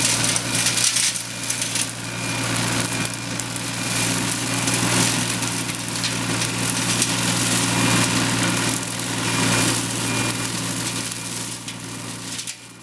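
A mini excavator's engine running steadily while a Raptor EX-30 hydraulic flail mower on its arm spins, cutting through grass and brush. The sound fades out near the end.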